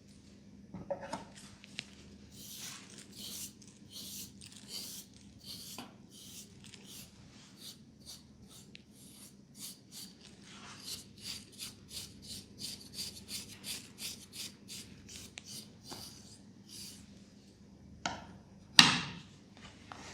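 Hands rubbing briskly over hair and scalp in a head massage, repeated hissy strokes that settle into a quick rhythm of about three a second midway. Near the end comes a single sharp slap, the loudest sound.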